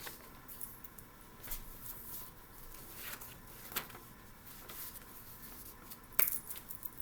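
Light handling noise: a few faint scattered clicks and taps, with a sharper click about six seconds in.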